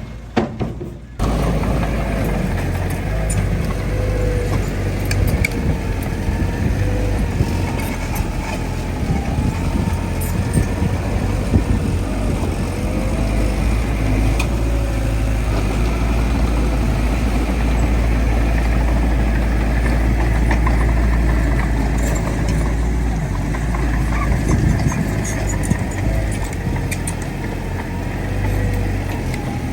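Heavy diesel earthmoving machinery, a bulldozer working fill with dump trucks, running steadily under load with a deep low rumble. The sound drops out briefly right at the start and then carries on without a break.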